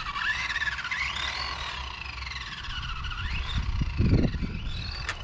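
Kyosho Lazer Alpha electric 4WD RC buggy running on asphalt: its motor and gear whine rises and falls in pitch as it speeds up and slows, over a low rumble of tyres on the road. About four seconds in the rumble briefly gets louder as it passes close.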